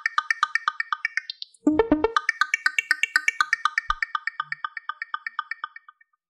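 Eurorack modular synthesizer playing a fast, even stream of short, bright pitched blips, about eight a second. It breaks off briefly, comes back with a lower, denser cluster about two seconds in, and then the blips thin out and fade away near the end.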